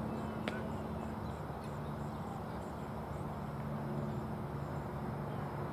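Steady outdoor ballfield ambience dominated by a low hum of road traffic. Faint high ticking repeats about twice a second, and a single light click comes about half a second in.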